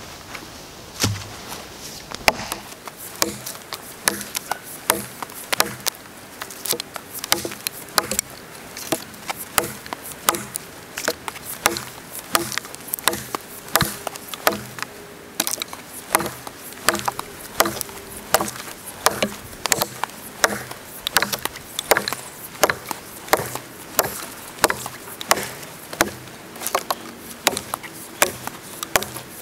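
Gränsfors Bruk Scandinavian Forest Axe chopping into a dead but still solid log: sharp blows in a steady rhythm, a little more than one a second.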